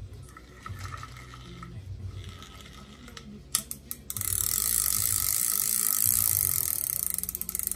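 Shimano spinning reel being worked by hand: a few clicks about three and a half seconds in, then a loud, very fast run of ratcheting clicks and whirring from the reel's mechanism for about four seconds.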